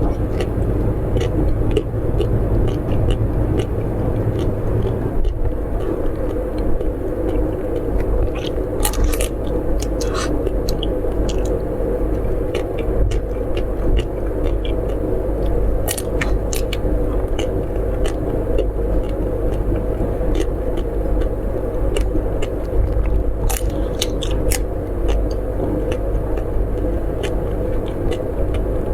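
Close-miked biting and chewing of food, with scattered sharp crunchy clicks, over a steady low rumble.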